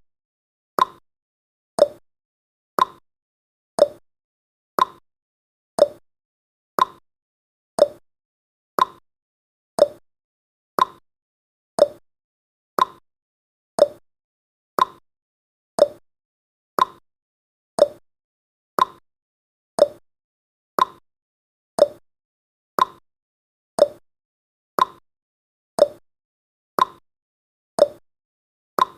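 Countdown timer's tick sound effect: one short, sharp tick every second, evenly spaced, each dying away quickly.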